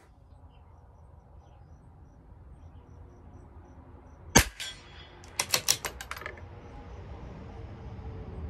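A single .22 LR rifle shot from a CZ 457 LRP bolt-action rifle about four seconds in, followed about a second later by a quick run of metallic clicks as the bolt is worked to chamber the next round.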